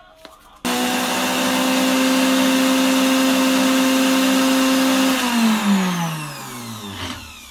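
Countertop blender motor running at full speed through a thick chickpea purée, starting suddenly, then switched off about five seconds in and winding down, its hum falling in pitch for about two seconds.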